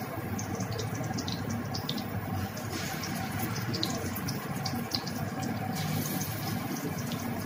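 Hot oil sizzling and crackling in a kadai as marinated fish steaks are laid in to shallow-fry. The sizzle swells twice, as a fresh piece goes into the oil.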